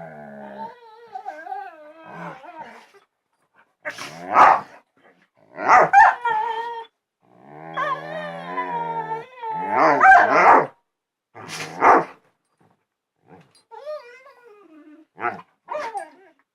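Two dogs 'talking' to each other: drawn-out howling, whining and grumbling calls that slide up and down in pitch, trading back and forth, with several louder, sharper calls in between.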